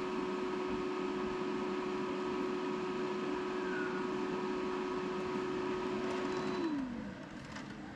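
HP LaserJet Pro MFP M428dw laser printer's internal mechanism whirring steadily during its power-on initialization. It then winds down with a falling pitch about six and a half seconds in.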